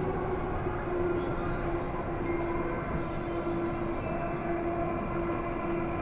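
Metro train running, heard from inside the carriage: a steady rumble of wheels on rails with a steady hum over it.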